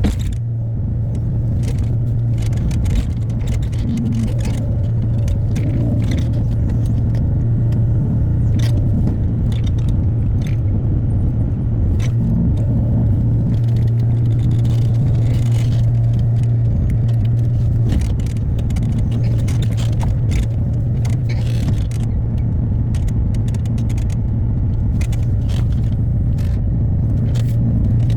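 Hyundai HX60A mini excavator's diesel engine running steadily under work, with scattered short clacks and scrapes from the machine working over the whole stretch.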